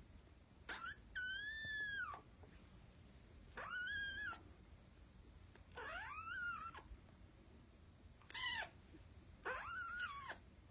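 Kitten meowing five times: high-pitched calls that rise and fall, the first about a second and a half long, the others shorter, with short pauses between them.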